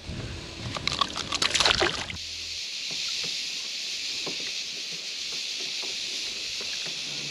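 Water moving around a plastic kayak: about two seconds of rough clattering and splashing noise, then a steady high hiss with faint small lapping sounds underneath.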